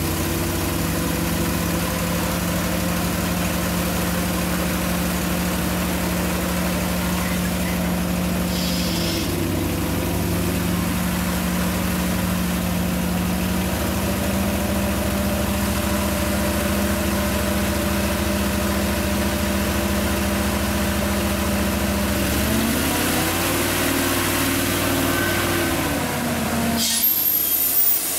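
TSE UP70B-TR cable puller's 61 hp gasoline engine with its 175 CFM air compressor, running steadily, then speeding up about two-thirds of the way through and settling back. Near the end there is a loud hiss of air being released.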